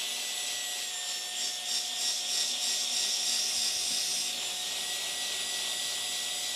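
Cordless drill running steadily with a thin motor whine, spinning a sock-and-polishing-sheet stick inside a hole in a thick acrylic block; the abrasive rubbing on the plastic adds a hiss that swells for a couple of seconds in the middle.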